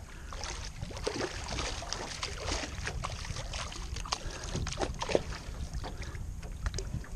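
Irregular splashes and knocks as a hooked bonnethead shark thrashes in shallow water beside a canoe, over a low rumble of wind on the microphone.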